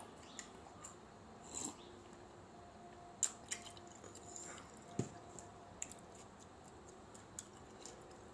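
Faint mouth sounds of someone sipping juice from a mug and swallowing: scattered small wet clicks and lip smacks, with a soft knock about five seconds in.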